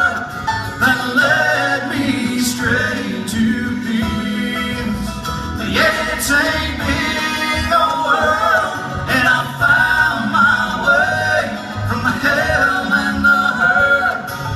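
Bluegrass band playing live, with a bending melody line carried over a steady string-band accompaniment.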